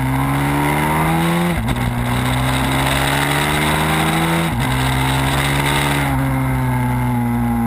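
Pit bike's single-cylinder engine pulling hard under load, heard from the bike itself. The revs climb steadily, dropping sharply at upshifts about one and a half and four and a half seconds in, and ease off slightly near the end.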